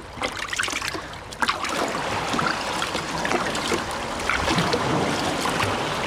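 Water splashing and sloshing, full of small clicks and crackles, growing louder about a second and a half in.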